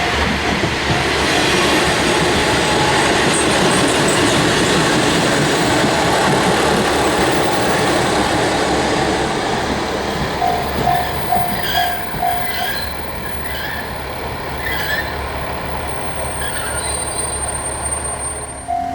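A train running past a Japanese railway level crossing, a steady noise of wheels on rail. The crossing's warning bell is ringing its repeated 'kan-kan' and comes through the train noise plainly about ten seconds in and again at the very end. High squeaks are heard in the later part as the train passes.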